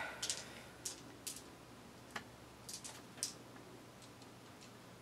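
Faint, irregular small clicks and rustles of paper being handled.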